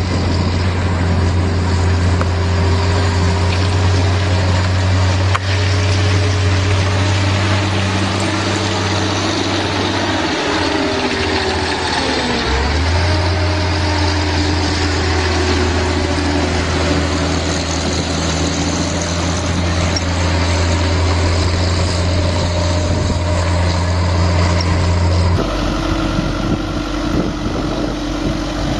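Heavy farm machine's engine running steadily with a deep hum. The pitch glides briefly about twelve seconds in, and the sound changes abruptly near the end.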